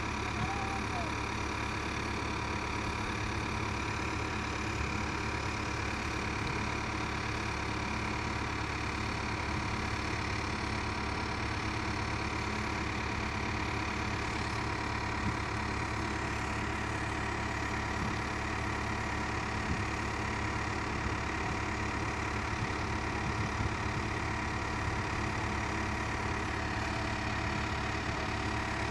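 Komatsu PC71 excavator's diesel engine idling steadily.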